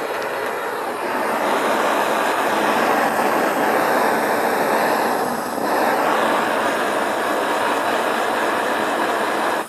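Hose-fed propane torch burning with a loud, steady rushing flame as it heats a bamboo cane; the noise stops abruptly near the end.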